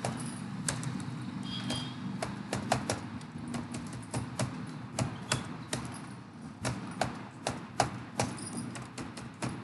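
Computer keyboard keys being typed one at a time, irregular sharp clicks about three a second, over a faint steady low hum.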